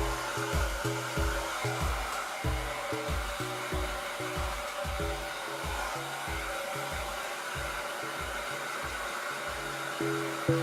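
L'ange Triomphe hair dryer blowing steadily, with background music carrying a regular bass beat over it.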